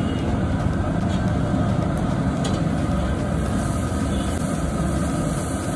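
A bhatura deep-frying in a kadhai of hot oil: the oil starts sizzling about halfway through as the dough goes in. A steady low rumble is the loudest sound throughout.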